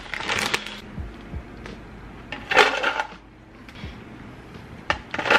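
Popcorn being scooped out of a crinkly snack bag with a plastic measuring cup: three bursts of bag crinkling and popcorn rustling, about two and a half seconds apart.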